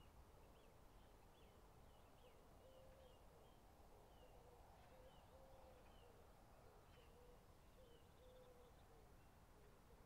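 Faint birdsong over a quiet outdoor background: a low call repeated in short notes, with scattered high chirps from small birds.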